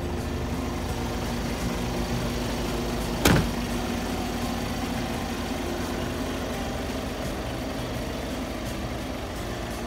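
Isuzu Giga tractor truck's diesel engine idling steadily, with a cab door slammed shut once about three seconds in.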